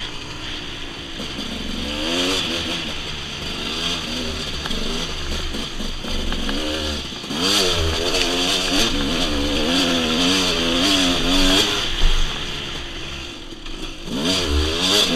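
Dirt bike engine revving up and down with the throttle while riding, its pitch wavering constantly; it eases off about seven seconds in and again shortly before the end, then picks back up.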